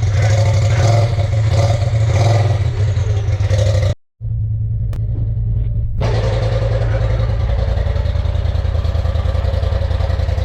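Polaris RZR Turbo S side-by-side's turbocharged twin-cylinder engine running, with a regular pulsing for the first few seconds; the sound drops out abruptly about four seconds in, comes back muffled, then settles into a steady run.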